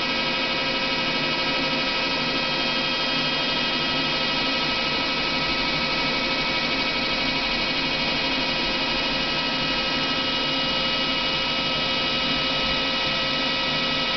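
Daewoo Puma 150G CNC lathe running: a steady machine whine of several held tones over a hiss, unchanging throughout.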